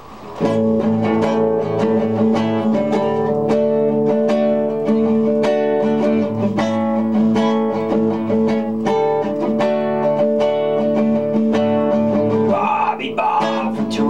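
Classical nylon-string guitar strummed in a steady rhythm, starting about half a second in as a song's intro; a singing voice comes in near the end.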